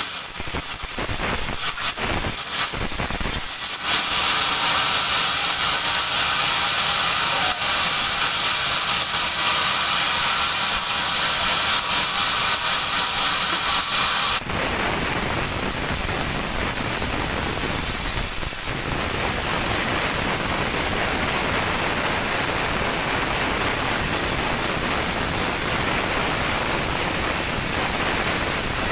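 Sawmill band saw running, with some knocks in the first few seconds and a steady hum over a hiss. About fourteen seconds in, the sound changes abruptly to a dense, even hiss.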